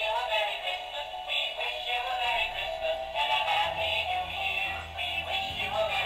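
A Christmas tune playing from the built-in music feature of an old Breyer holiday wagon set, an electronic melody that runs on without a break. It shows the set still works after years in its box.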